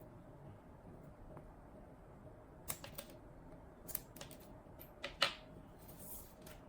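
A few sharp clicks and taps over faint room noise, coming in loose pairs through the second half, with a brief scrape after the last one.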